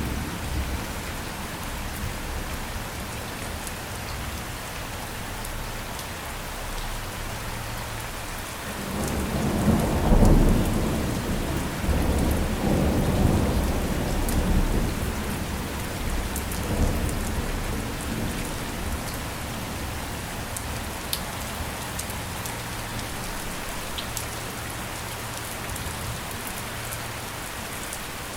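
Steady rain with scattered drops, and a roll of thunder that rumbles in about a third of the way through, peaks soon after and fades out over several seconds.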